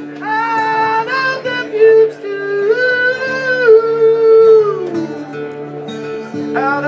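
A man singing long, drawn-out notes into a microphone over an acoustic guitar. The voice holds each note for a second or more, slides down near the middle, and starts a fresh note just before the end.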